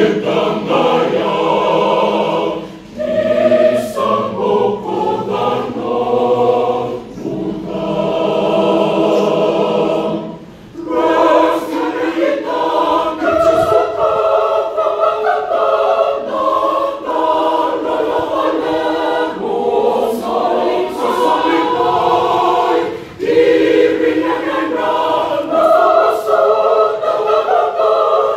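Mixed church choir of men's and women's voices singing a hymn a cappella in full harmony, with short breaths between phrases three times.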